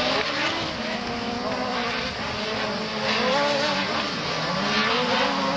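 Engines of several autocross racing buggies running hard on a dirt track, their pitch rising and falling as the drivers accelerate and lift off.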